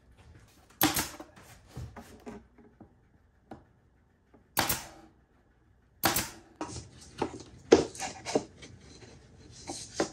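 Irregular sharp knocks and clicks of hard objects being handled, with a few louder knocks about a second in, near the middle and toward the end, and quieter ticks between them.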